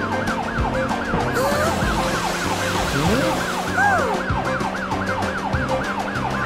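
Electronic police siren yelping, its pitch rising and falling about four times a second, over background music with a steady beat.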